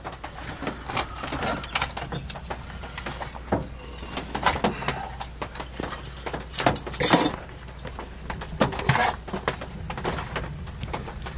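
Handling noise of cookware and food packaging: a run of irregular knocks, clicks and rustles, with louder clatters about four and a half, seven and nine seconds in, over a steady low hum.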